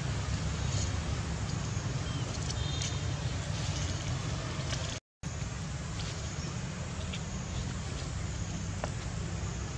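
Steady low rumble and hiss of outdoor background noise, broken by a moment of silence about halfway through.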